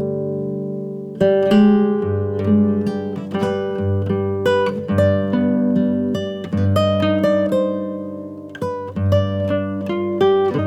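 Background music: an acoustic guitar playing plucked notes and chords that ring and die away over low held tones.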